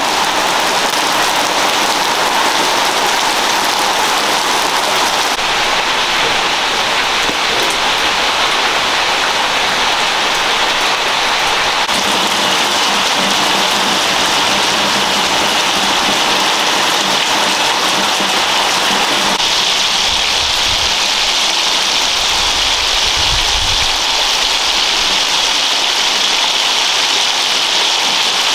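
Food frying in hot oil in a pan: a steady, loud sizzle that shifts slightly in tone a few times.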